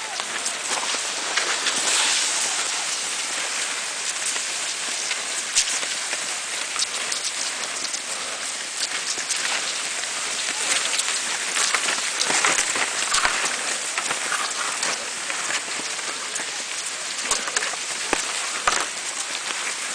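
Cross-country skis and poles on packed snow from many skiers passing close by: a steady scraping hiss of skis gliding, with many small clicks and scrapes of pole tips planting.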